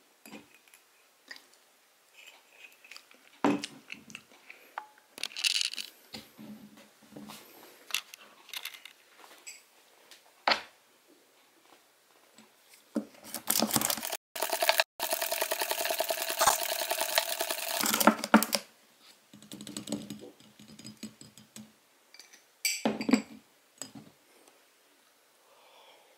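Spoon stirring dalgona coffee foam into milk in a glass mug, clinking fast against the glass for about five seconds midway with a ringing tone. Scattered knocks and clinks of the glass and spoon being handled come before and after.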